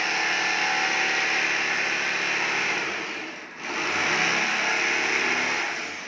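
Corded electric jigsaw cutting through a wood panel, its motor and blade running steadily. It drops out briefly about halfway through, starts again, and winds down near the end.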